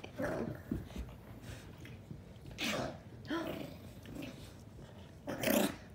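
Teacup Maltese and Aussiedoodle puppy play-fighting: about four short bursts of dog noise, the loudest near the end.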